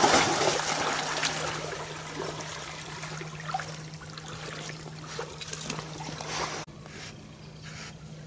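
Water sloshing and splashing from wading through shallow flooded timber, loudest at first and slowly fading, then cutting off abruptly near the end to a quieter background.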